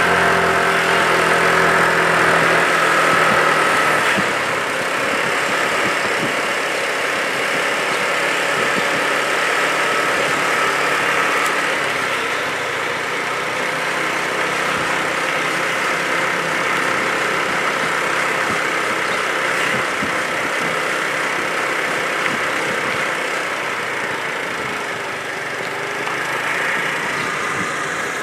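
A motor vehicle's engine running steadily, a constant drone with a faint whine on top.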